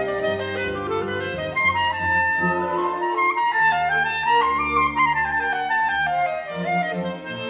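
Solo clarinet playing a running melody over a string orchestra's sustained accompaniment; a run of notes climbs to a high point about five seconds in and then falls away.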